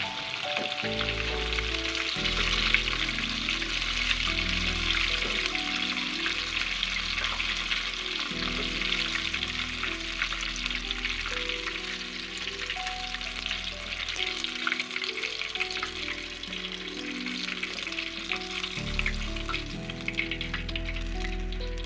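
Chicken wings frying in hot oil: a steady sizzle with fine crackling throughout, over background music.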